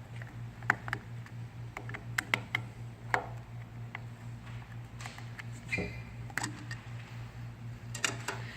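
Scattered small clicks and taps of a screwdriver and fingers working the screws and lid of a plastic junction box, with a short scrape about six seconds in, over a steady low electrical hum.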